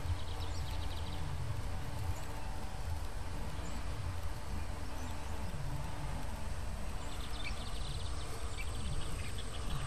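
Birds chirping in short rapid trills over a steady low rumble, with a thin high insect buzz setting in about seven seconds in.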